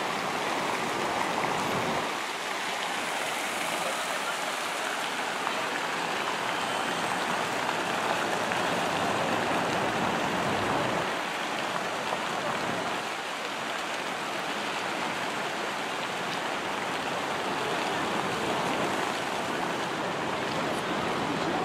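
Steady rushing outdoor noise of a busy city plaza, with indistinct crowd voices mixed in.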